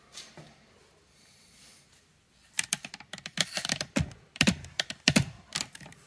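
A quick, irregular run of sharp clicks and taps from hand tools, with a few heavier knocks among them. It starts about two and a half seconds in and stops shortly before the end.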